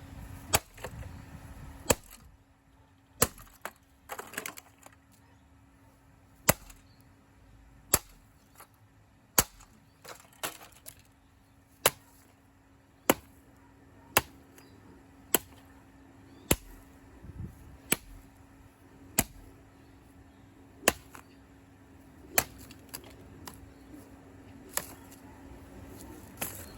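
Repeated sharp strikes on a vintage Hoover table fan, about twenty of them, roughly one every second and a bit, over a steady low hum.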